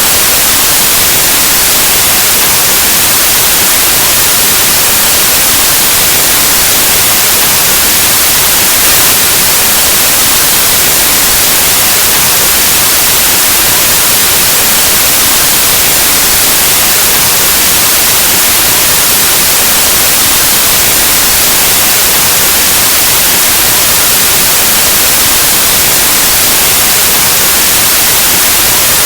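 Steady, loud white noise: an even hiss across the whole range, like analog TV or radio static, unchanging throughout.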